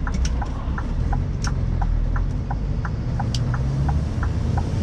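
Scania V8 truck heard from inside its cab while driving: a steady low engine and road rumble. Over it runs a regular light ticking, about three ticks a second.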